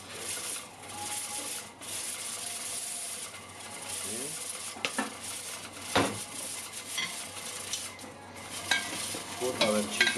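Metal ladle clinking and scraping against steel pots and bowls, over a steady high kitchen hiss. The loudest clink comes about six seconds in.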